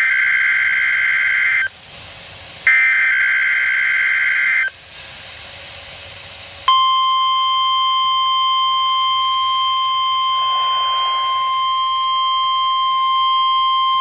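NOAA Weather Radio weekly test signal. It opens with two buzzy two-tone bursts of SAME digital header data, each about two seconds long with about a second between them. About seven seconds in, the steady 1050 Hz weather radio warning alarm tone starts and holds unbroken.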